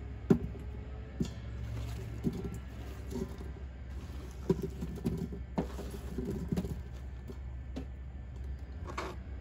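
Raw cauliflower florets dropped one at a time into an Instant Pot's empty stainless-steel inner pot, then pushed in off a plastic cutting board. About a dozen irregular light thuds and taps, with a sharper knock near the end.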